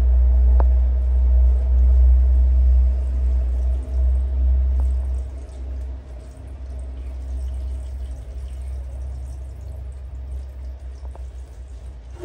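Water running from a shower hose into a plastic bucket in a small tiled bathroom: a steady low rush that eases to a quieter flow about five seconds in.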